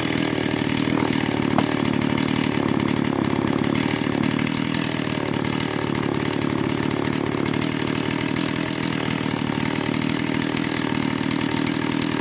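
Stihl 038 Magnum chainsaw, fitted with a new Chinese-made 038 Super-type 66.8 cc engine that is still being run in and a stock muffler, idling steadily with the chain at rest.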